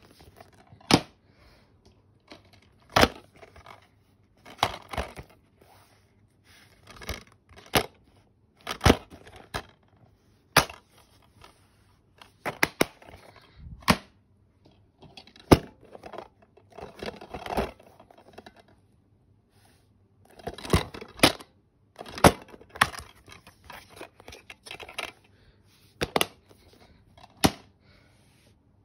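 Plastic DVD cases being handled: irregular sharp clacks as cases are picked up and put down, with rustling scrapes between them.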